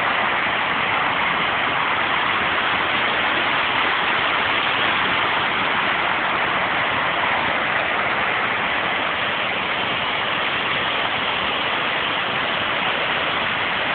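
Waterfall: white water pouring down a rocky cascade, a loud, steady rushing noise.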